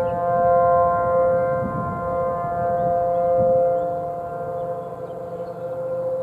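Outdoor emergency warning sirens sounding a steady tone during their annual full test for the nuclear power plant's warning system. The pitch holds constant while the loudness swells and fades as the sirens rotate.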